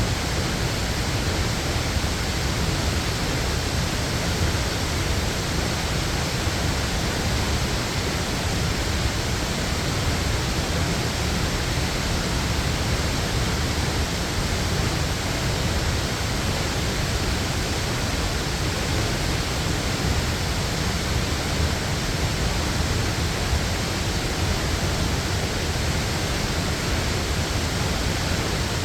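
Waterfall: water falling and rushing in a steady, unbroken roar with no pauses or changes.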